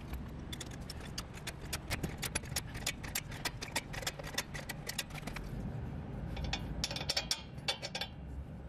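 A ratchet wrench clicking in fast runs as a nut on the front suspension's lower control arm is worked loose, with a denser burst of clicks near the end.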